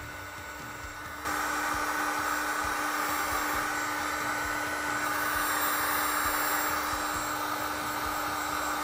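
Electric heat gun blowing hot air steadily to shrink heat-shrink tubing over a crimped wire connector: a rush of air with a steady motor hum, getting louder about a second in.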